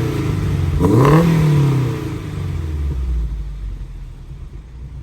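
Honda S2000 four-cylinder engine through a titanium dual cat-back exhaust, blip-revved toward 4,000 rpm. One rev falls away at the start, a second quick blip comes about a second in, and the engine settles back to a steady idle after about two seconds.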